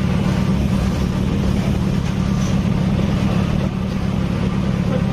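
Motorcycle engine running steadily at an even speed, with a dense low rumble.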